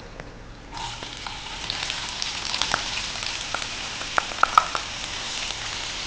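Chopped onion sizzling in hot oil in a frying pan, with scattered crackles and pops. The sizzle starts about a second in, as the onion goes into the pan.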